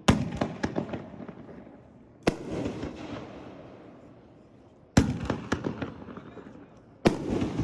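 Aerial fireworks shells from a Tako 9-shot rack going off: four loud booms about two seconds apart. Each boom is followed by a quick ripple of smaller cracks and a fading rumble.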